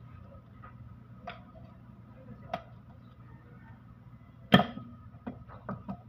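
Small metal parts from a Canter truck gearbox clinking and tapping as they are worked and handled, with one sharp, loud clank about four and a half seconds in and a few lighter clicks after it.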